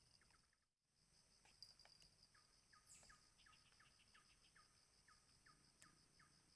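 Faint insect chorus, a steady fast-pulsing trill, with a run of short repeated calls, about two or three a second, starting about two seconds in.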